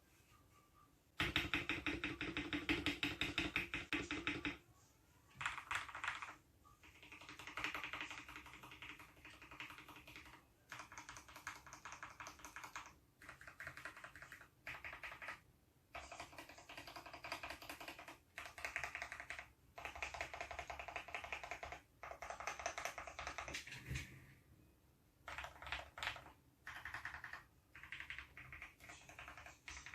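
Typing on a Tes 68 mechanical keyboard: runs of rapid key clicks broken by short pauses, the fastest and loudest run in the first few seconds and a longer pause near the end.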